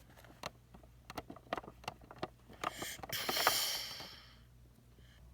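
Light clicks and knocks of small plastic toys being handled, then a hissing whoosh for the toy airplane's takeoff that swells about three seconds in and fades away.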